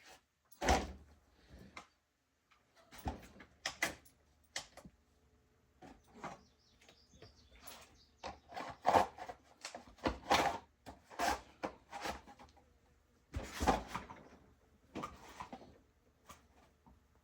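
Irregular knocks, clicks and scrapes of chainsaws being handled, the loudest knocks about a second in and again around the middle and near the end.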